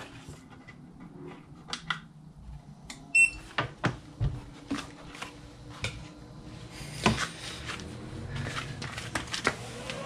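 A few knocks and clicks of handling and a short beep about three seconds in. Then a low steady hum as the chest freezer's compressor starts. From about seven seconds a rising whir builds as the EcoFlow Delta 1300 power station's cooling fan kicks on while it powers the freezer.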